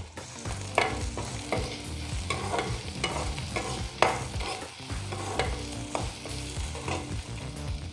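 Chopped onion and capsicum frying in oil in a kadhai, with a steady sizzle. A spatula stirs them, scraping and knocking against the pan at irregular intervals.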